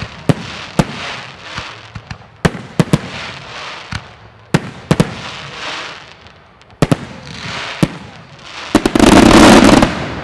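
Aerial firework shells bursting in a rapid series of sharp bangs, each followed by a fading fizz and crackle as gold trailing stars fall. Near the end a dense, very loud burst of noise lasting about a second stands out as the loudest moment.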